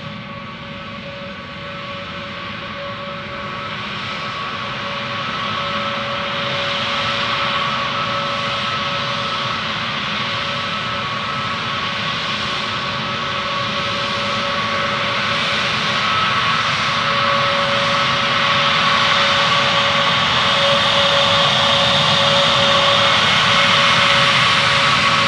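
Korean Air Airbus A321neo taxiing at low power, its twin turbofan engines giving a steady whine with a few held tones. It grows gradually louder as the airliner turns and comes closer.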